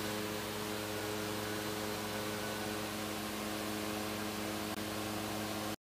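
Steady electrical hum with an even hiss under it. It stops abruptly near the end.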